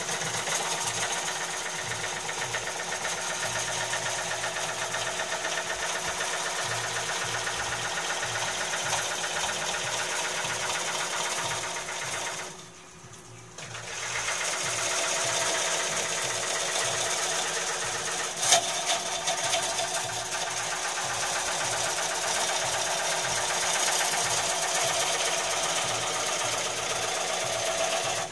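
Long-handled gouge cutting the inside of a large oak bowl spinning on a VB36 lathe: a steady noise of the cut that breaks off for about a second roughly halfway through, then carries on. A single sharp click comes a few seconds after the break.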